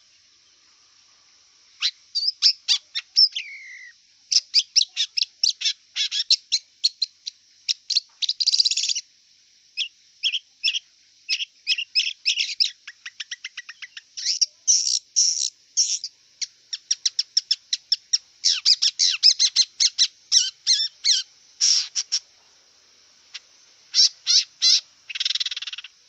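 Long-tailed shrike (cendet) singing: rapid runs of short, sharp high notes in chattering phrases with brief pauses, starting about two seconds in. A steady high hiss lies underneath.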